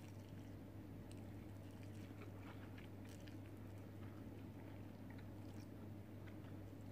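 A person faintly slurping and chewing a mouthful of instant ramen noodles, in scattered short wet smacks and clicks, over a steady low hum.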